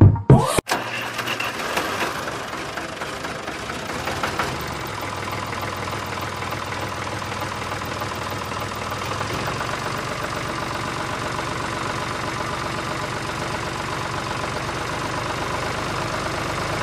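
Motor of a toy tractor running steadily, with a fast knocking rhythm like a small tractor engine, as it pulls a loaded trolley. It comes in just after music stops in the first second.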